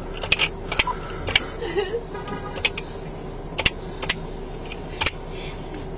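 Sharp metallic clicks and jingling of handled metal gear such as keys, about a dozen, several in quick pairs, with a short rattle about two seconds in, over a steady hum.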